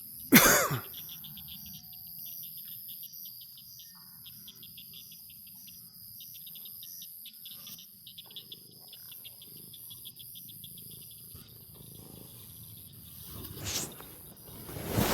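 Insects chirping in rapid, steady pulsed trills, with a loud short burst close to the microphone about half a second in and again near the end.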